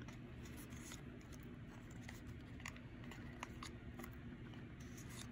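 Faint rustling and light ticks of a sticker pack and its stickers being handled and slid out, over a steady low hum.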